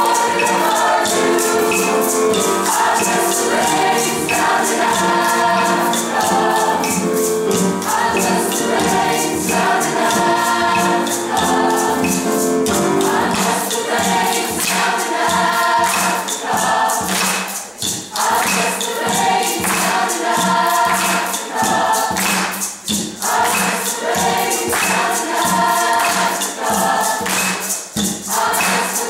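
Mixed choir singing in harmony, with a hand drum keeping a steady beat underneath. The singing briefly drops back a couple of times in the second half.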